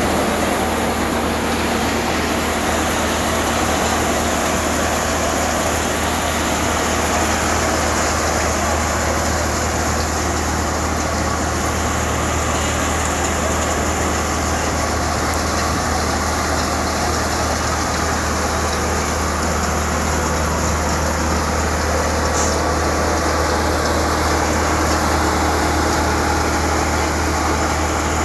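New Malwa thresher running steadily as it threshes pearl millet (bajra), mixed with the engine of the tractor that drives it: a continuous, unchanging machine drone.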